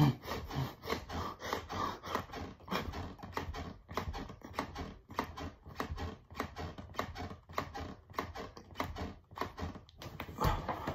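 A person doing push-ups and breathing hard in quick, short puffs, about three a second, with a louder, longer breath near the end.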